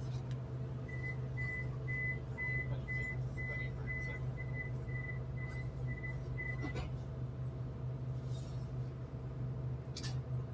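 A train's door warning beeper sounding about a dozen short, high beeps, roughly two a second, which stop abruptly after about six seconds. Under them runs the steady low hum of the train standing at the platform. A short click comes near the end.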